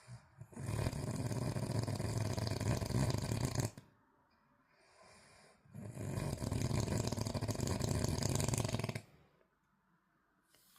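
Snoring: two long snores of about three seconds each, about two seconds apart, with a deep, rasping low end.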